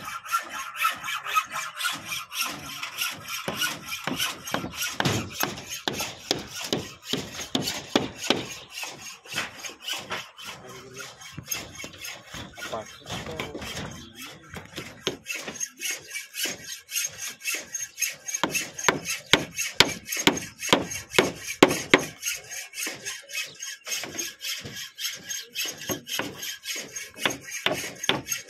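Rapid repeated rasping and scraping strokes on wood, with sharper knocks here and there, louder in the second half.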